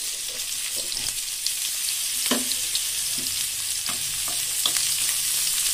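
Sliced onions and ginger-garlic paste sizzling in hot oil in a kadai, a steady hiss, with a wooden spatula stirring and scraping through them in a few short strokes.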